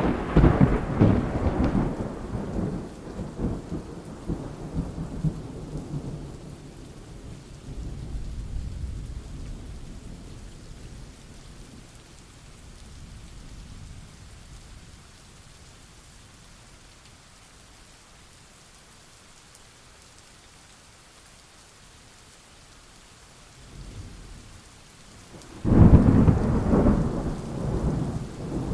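Thunderstorm: steady rain hiss with thunder. A loud crack of thunder at the start rolls off into rumbling over several seconds, a softer rumble follows, then rain alone for a while before another loud clap of thunder about 26 seconds in, rumbling to the end.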